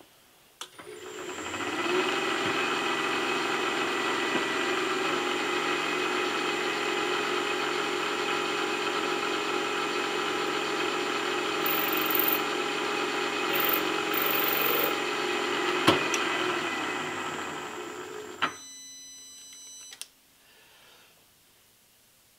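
Milling machine spindle starting up about a second in and running with a steady whine while a homemade 60-degree boring tool cuts a chamfer into a hole in a metal part, then switched off and spinning down near the end.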